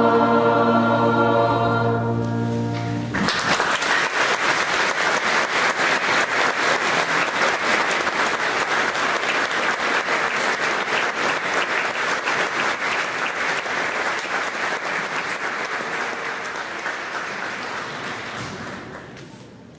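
A boys' choir holds its final chord, which stops about three seconds in; the audience then breaks into steady applause that fades out near the end.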